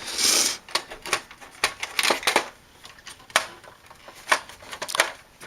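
Irregular plastic clicks and knocks from handling a desktop PC's plastic front bezel and fitting it onto the case, with a brief scrape at the start.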